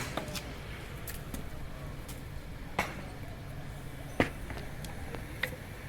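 Scattered sharp knocks and clinks of metal being worked, a second or more apart and loudest about four seconds in, over a steady low hum.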